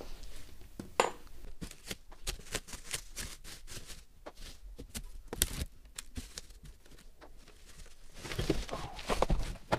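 Plastic packaging crinkling and rustling against cardboard as parts are pulled out of a cardboard box, with many small clicks and a louder stretch of rustling near the end.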